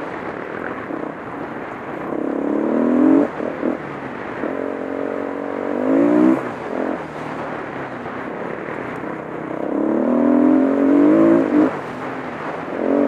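Single-cylinder four-stroke dirt bike engine heard from on the bike, accelerating hard three times with the note rising and then dropping off sharply as the throttle is closed, and a short fourth burst near the end, over steady engine and wind rumble.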